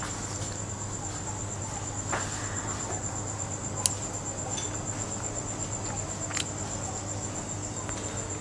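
Mouth-close eating: food chewed and wooden chopsticks clicking sharply twice, over a steady, finely pulsing high trill like a cricket's and a low hum.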